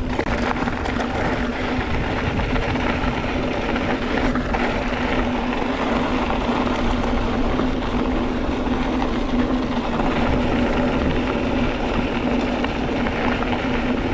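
Specialized Stumpjumper mountain bike rolling along at a steady speed, a constant hum from its wheels over a rush of rolling and wind noise.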